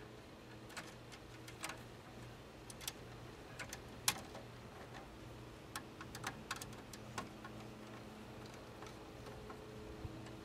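Irregular small metallic clicks and taps of a screwdriver working the wire terminal screws of a pool time clock in a metal control box, over a faint steady low hum. The loudest click comes about four seconds in.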